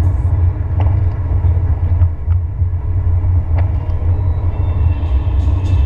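Steady low rumble of a car driving on a wet highway, heard from inside the cabin, with a few light clicks.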